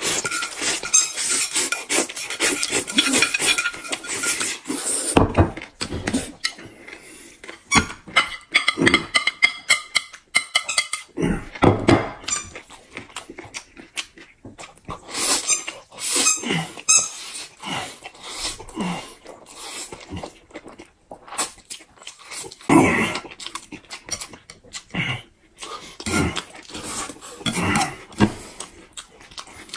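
Noodles being slurped and chewed, with a long continuous slurp over the first few seconds, then repeated shorter slurps and chews, and chopsticks clicking against the plates.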